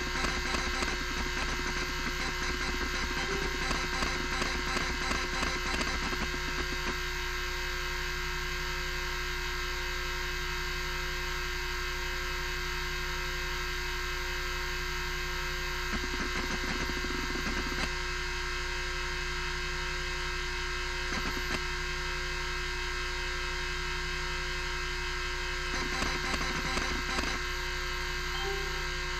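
Miniscribe 3425 20 MB MFM hard drive running, its loud spindle motor giving a steady hum and whine. Over it the stepper-motor head actuator chatters in fast seeks for the first six seconds or so, in a couple of short spells in the middle, and again near the end.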